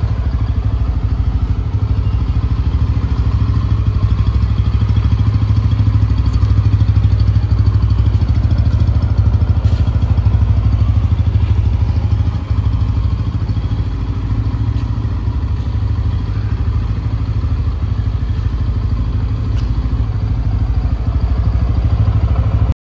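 Bajaj Pulsar N160's single-cylinder engine idling steadily, a loud, even low pulsing that cuts off suddenly near the end.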